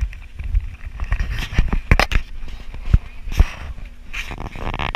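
Footsteps on wooden steps and handling noise from a carried camera: irregular knocks, scuffs and low thumps.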